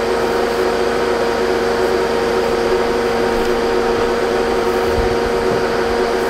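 Loud, steady machine noise with a constant whine from the compressed-air moling rig (air compressor driving a pneumatic mole) working while the new plastic water pipe is pulled through underground.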